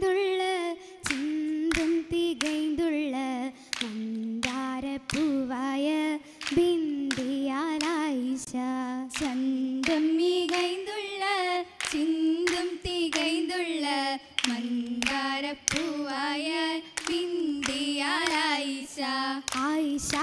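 Oppana song: female voices singing a Mappila melody without instruments, the pitch wavering and ornamented, kept in time by the dancers' sharp, regular hand claps.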